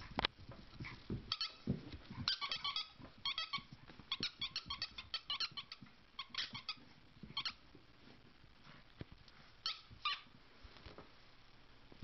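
Boston Terrier whining in short, high-pitched squeaks that come in quick runs, then two more squeaks near the end.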